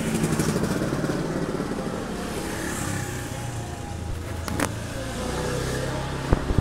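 A small motorcycle engine running, its speed shifting a little, with two sharp clicks in the second half.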